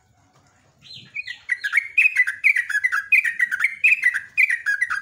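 Yellow-vented bulbul (trucuk) singing a long, rapid run of bubbly, down-slurred whistled notes, about four a second, starting about a second in.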